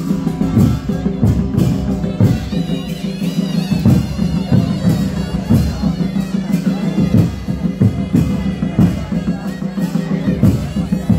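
Traditional Pahari procession music for a village deity: a reed pipe plays a wavering melody over steady drumming.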